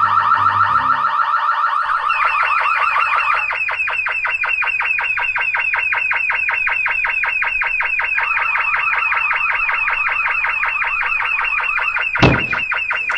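Alarm sound effect: a rapid, evenly pulsing electronic tone, about eight pulses a second, going off continuously as the thieves are caught. There is a single thump about twelve seconds in.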